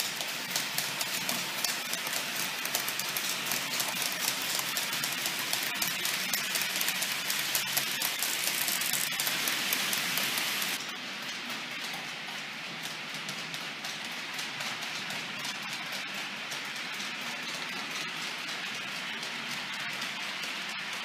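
Model freight train hauled by a Roco HLD 59 diesel locomotive rolling along the layout's track: a dense, even rattle of small wheels clicking over the rails. It drops abruptly to a quieter rattle about eleven seconds in.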